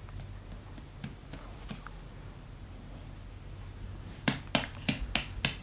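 Quick, even pats on a baby's back to bring up a burp, starting about four seconds in at roughly four or five pats a second.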